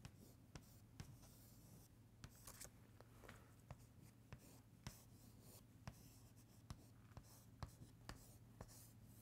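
Chalk on a chalkboard: faint scratchy strokes and repeated sharp taps as lines, a circle and boxes are drawn. A steady low hum runs underneath.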